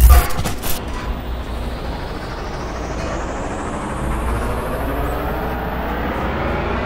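A heavy low thump at the start, then street traffic noise with a road vehicle's engine accelerating, its pitch rising steadily through the second half.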